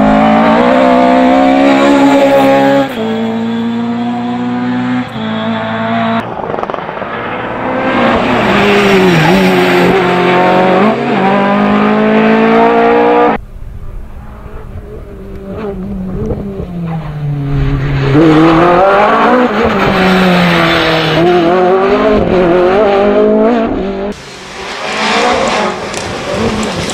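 Millington Diamond four-cylinder rally engines revving hard, the pitch climbing and dropping with gear changes and lifts, one car after another with abrupt changes between them.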